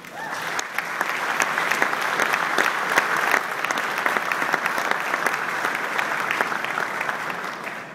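Audience applauding: dense clapping that builds over the first second, holds steady, then eases off near the end.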